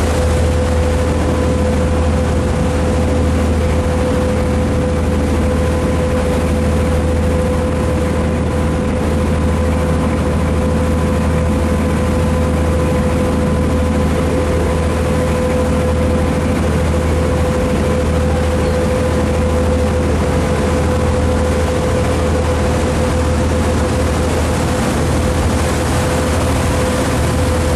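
Tour boat's engine running steadily, a constant low hum with a steady whining tone above it and an even hiss.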